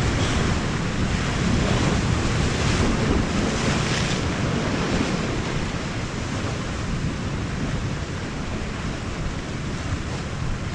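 Sea surf washing on the shore, with wind rumbling on the microphone.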